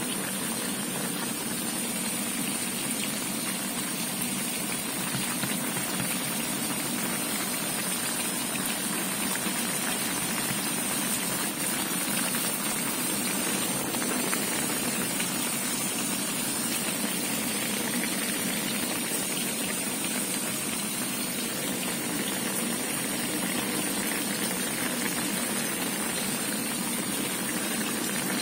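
Pan of tilapia paksiw broth at a rolling boil: steady, dense bubbling, joined by a constant high hiss.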